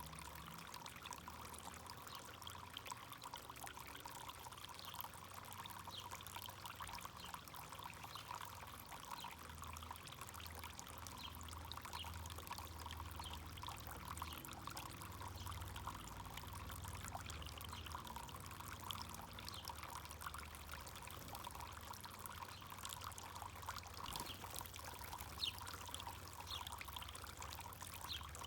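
Backyard garden fountain pouring and trickling steadily, with a low hum underneath.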